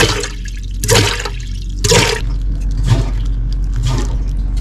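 Foot-pedal galley pump pressed about once a second, each stroke squirting a gush of water from the faucet into an aluminium kettle in the sink, over a steady low hum.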